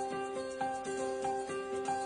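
Instrumental background music: a steady run of held notes that changes about every half second.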